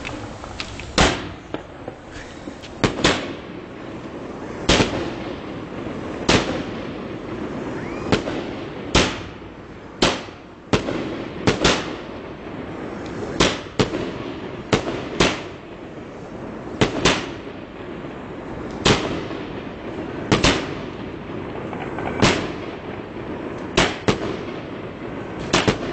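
Fireworks going off over and over: sharp bangs every second or two, some in quick pairs, over steady background noise.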